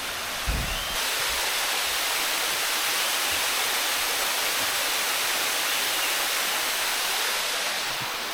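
Steady rushing of water cascading over the rocks of the Sticky Waterfall, getting louder about a second in, with a brief low thump near the start.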